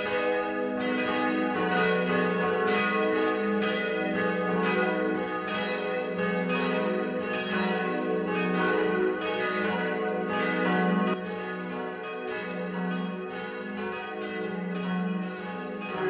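Church bells ringing in a continuous peal, strokes coming about twice a second, somewhat quieter from about eleven seconds in.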